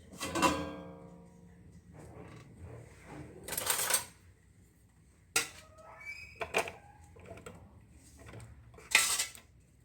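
Kitchen handling sounds while loading a food processor: a ringing clink near the start, then a few sharp clicks and two short scrapes.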